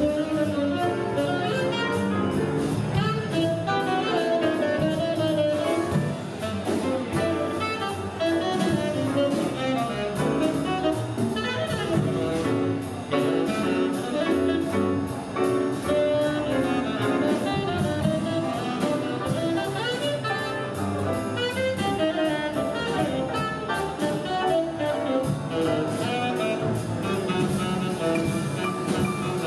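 Jazz band playing, with saxophones and brass over a rhythm section, without a break.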